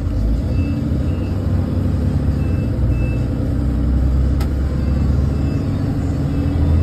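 School bus diesel engine running steadily while driving, heard from the driver's seat. Short high beeps come in pairs about every two seconds, and there is a single click about four seconds in.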